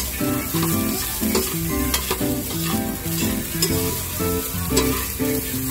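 Metal spatula scraping and knocking against an aluminium wok as fried rice is stirred and tossed, with the rice sizzling and a few sharp clacks standing out. Background music with a repeating low melody plays underneath.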